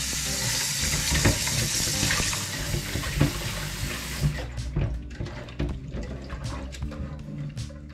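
Kitchen tap running into a sink while fish is rinsed by hand. The water runs full for about four seconds, then eases to a lighter flow with small splashes and knocks.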